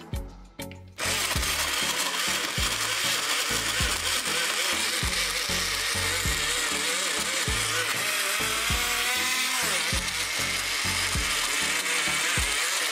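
PopBabies portable rechargeable blender with a 175-watt motor switching on about a second in and running steadily, blending banana, mango, soy milk and water. Background music with a steady beat plays under it.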